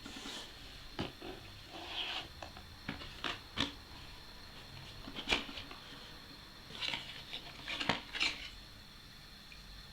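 Packaging of a boxed Nexus 7 tablet being handled during unboxing: a dozen or so scattered clicks, taps and short rustles over a faint steady high-pitched hum.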